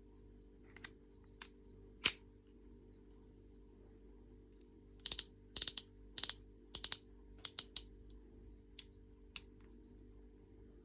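Sharp mechanical clicks from working the action of a Tanaka Works Smith & Wesson replica revolver. There is one loud click about two seconds in, then a quick run of about ten clicks, several in close pairs, and two fainter ones near the end.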